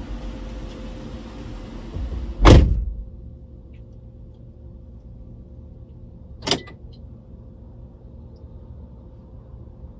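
Car door slammed shut about two and a half seconds in, a loud thud that cuts off the outside noise, followed about four seconds later by a single sharp click.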